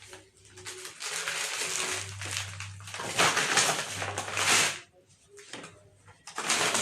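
Plastic shopping packaging rustling and crinkling as it is handled, loudest in the middle, pausing briefly before starting again near the end.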